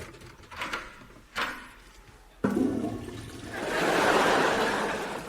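Two short knocks, then a toilet flushing: a sudden rush of water about two and a half seconds in that swells and slowly dies away.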